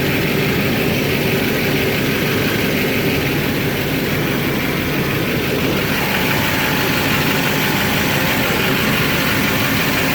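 Stock diesel pickup truck idling steadily after a warm start, its exhaust running through the factory muffler, DPF and catalytic converter, which keep it quiet.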